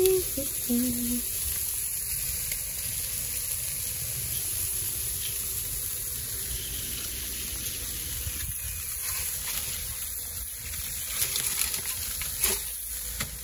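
Chicken, bacon-wrapped chiles and peppers sizzling on a grill: a steady hiss, with a few light clicks near the end.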